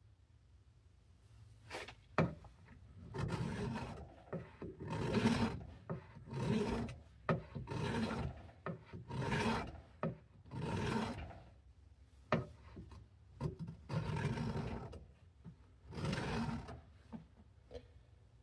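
Knife blade being stroked across a coarse-grit sharpening stone lubricated with WD-40, about ten slow strokes roughly a second apart, with a couple of short sharp clicks between them. The steel is being ground at the tip to raise a burr and bring back a point.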